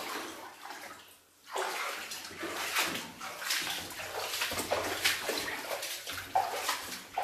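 Boots wading through water in a flooded mine tunnel, a run of irregular splashing and sloshing steps that picks up after a brief lull about a second and a half in.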